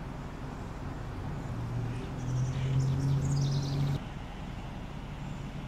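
Steady low traffic rumble, with a deeper hum that swells in the middle and cuts off suddenly about four seconds in. Faint high bird chirps sound over it in the middle.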